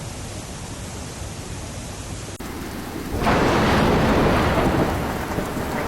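A steady hiss of rain, then, after an abrupt change, a sudden loud rumble of thunder over heavy rain about three seconds in, easing off near the end.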